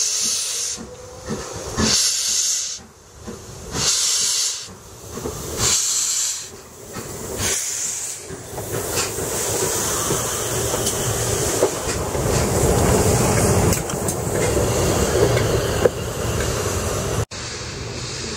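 Steam locomotive moving slowly along the platform: loud hissing puffs of steam about once a second, then a steady hiss and rumble as it passes close by. Near the end the sound cuts to wind on the microphone.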